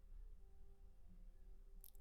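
Near silence: faint room tone with a low steady hum, and a brief click near the end.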